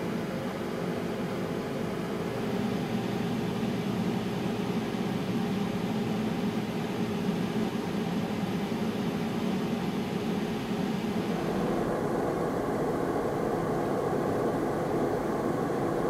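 Stock chassis fans of a rack-mounted storage server running at full speed: a steady whooshing roar with a few hum tones in it. About two-thirds of the way through, the sound changes as the hiss drops away and a deeper hum comes forward.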